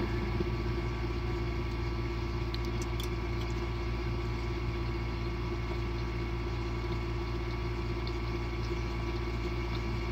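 A steady low hum fills the room, with a few faint clicks of a metal spoon and fork about three seconds in.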